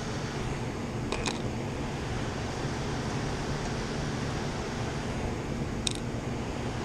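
Steady machinery-like rushing noise with a low hum, with a few light clicks about a second in and again near the end.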